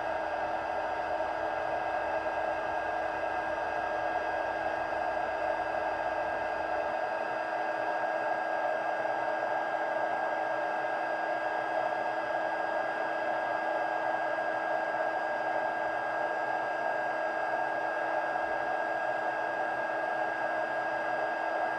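Handheld embossing heat gun running steadily, its fan blowing hot air with a steady whine over the rush as it melts embossing powder on cardstock.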